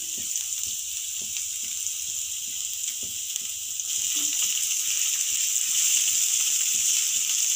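Grated garlic sizzling in hot oil in a nonstick frying pan, stirred with a silicone spatula partway through. A steady hiss with light crackles, growing slightly louder toward the end.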